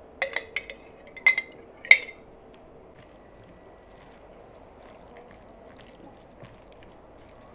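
A utensil clinking against a dish as mayonnaise is added to a salad: four sharp clinks in the first two seconds, each with a short ring, the last the loudest. After that only a faint hiss.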